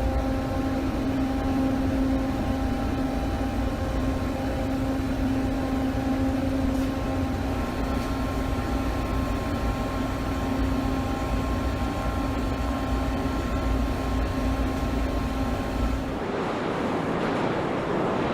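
Machinery running with a steady hum of several held tones over a low rumble; about two seconds before the end the hum stops and a steady hiss takes over.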